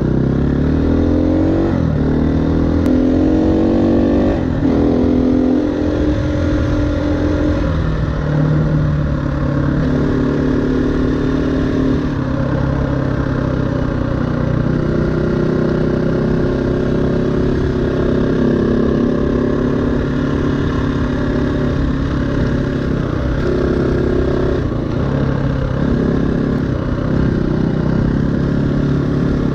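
KTM 350 EXC-F's single-cylinder four-stroke engine under way off-road, its pitch climbing in the first few seconds and then rising and falling again and again as the throttle opens and closes.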